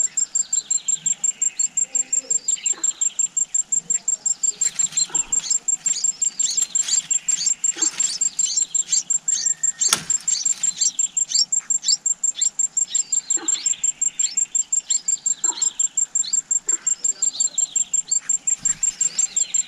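Red-whiskered bulbul nestlings and parent calling at the nest: many short, high, falling chirps, busiest in the middle, over a steady, rapid high-pitched pulsing of about four or five beats a second. There is one sharp click about halfway through.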